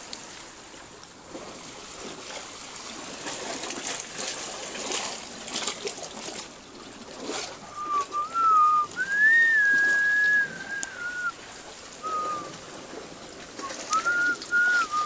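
Water trickling and lapping among rocks, with a few small splashes. About halfway through, a loud whistled tune starts: one pure note that steps up and down in short phrases, with one long held note. It comes back in two short phrases near the end.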